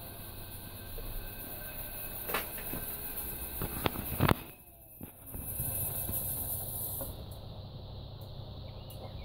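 Samsung Eco Bubble washing machine running, its belt-driven drum turning with a steady low hum. A few sharp knocks sound over it, the loudest a little over four seconds in, after which the sound briefly drops away.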